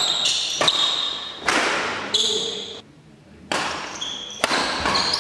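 Badminton rackets smashing a shuttlecock back and forth in a fast doubles rally: about seven sharp cracks roughly a second apart, each ringing on in the large hall. Short high shoe squeaks on the court floor come between them, and there is a brief lull a little under three seconds in before the hitting resumes.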